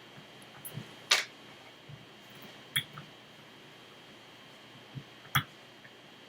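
Sharp clicks and taps of lock-picking tools working in a Master Lock Pro Series padlock, as tension is let off and the pick reset to start over after a pin was overset. A loud click about a second in, another near three seconds, and two close together near the end.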